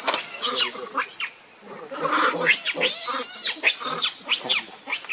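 Baby macaque crying: a run of short, high-pitched squeals, with a brief pause about one and a half seconds in.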